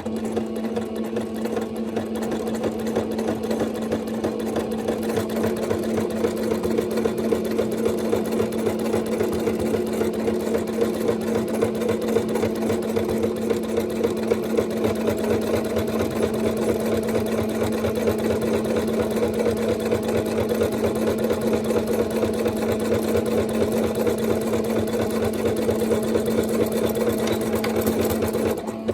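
Singer Starlet 6680 electric sewing machine running steadily at speed, stitching a rolled hem. A steady motor hum with a rapid, even needle clatter.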